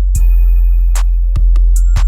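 Electronic background music with a heavy bass, drum-machine beat and held synth notes.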